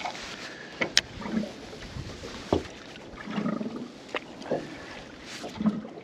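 Water lapping and slapping against the hull of a small drifting boat, with a few sharp knocks and clicks of tackle and gear on board.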